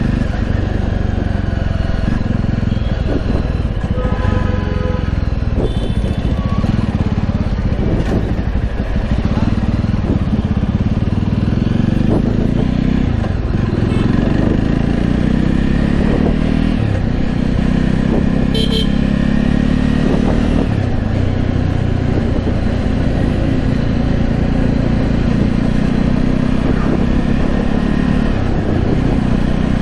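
Jawa 42 motorcycle's single-cylinder engine and exhaust running under way, heard from the rider's seat, its pitch falling and rising several times as the bike slows and accelerates in traffic.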